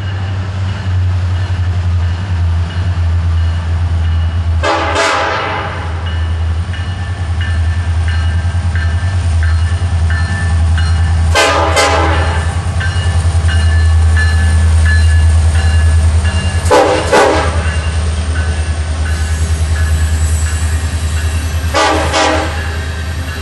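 BNSF coal train led by an SD70ACe diesel-electric locomotive approaching and passing, its engine's deep rumble growing loudest as the locomotive goes by, then the rail cars rolling past. The locomotive's horn chord is fading out at the start, and four short bursts of noise come about every five to six seconds.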